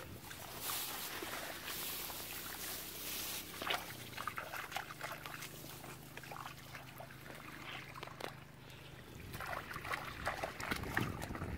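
Hands and feet splashing and squelching in shallow muddy water, with a denser run of wet sucking steps through mud near the end.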